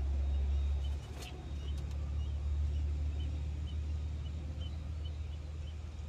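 Nestlings begging with faint, high, short cheeps repeated about twice a second, over a steady low rumble that eases a little about a second in.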